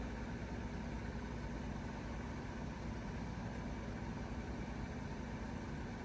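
Trane XR14 3-ton heat pump outdoor unit running steadily in cooling mode: an even hum from the scroll compressor under the whoosh of the condenser fan.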